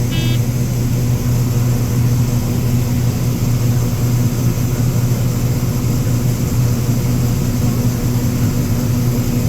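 Harvest machinery engine running at a steady, unchanging drone. A short electronic beep sounds right at the start.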